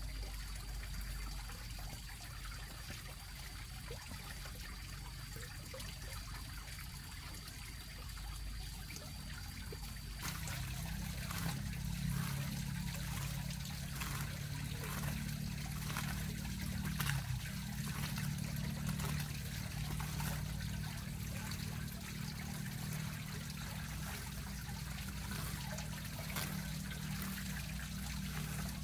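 Water trickling steadily. About ten seconds in the sound changes abruptly, and from then on faint regular strokes come about once a second over the flowing water.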